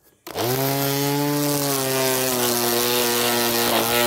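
Ozito 18V cordless garden tool's electric motor starts, its pitch rising quickly as it spins up, then runs at a steady whine.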